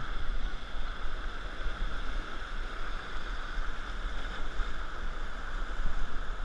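River whitewater rushing steadily past a raft, with a low rumble of wind on the microphone.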